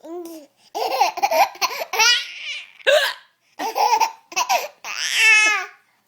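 A woman hiccuping and a baby giggling in reply, in a string of short bursts: sharp hiccups alternating with high-pitched baby laughter.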